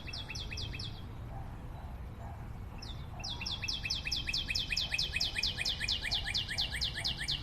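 A bird calling in a fast series of short descending chirps, about five a second: a brief run at the start, then a longer run from about three seconds in.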